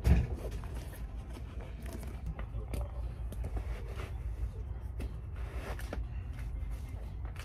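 Scattered light taps and rustles of a basketball sneaker being handled and pulled on, over a steady low hum of room noise, with one sharp thump at the start.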